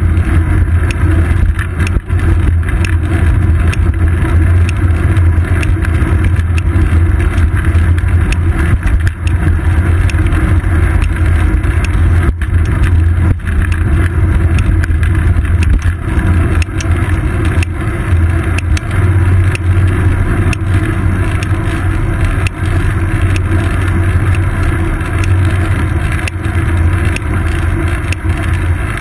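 Steady low rumble of wind and road vibration picked up by a seat-post-mounted GoPro Hero 2 on a moving road bicycle, with frequent small knocks from bumps in the road surface.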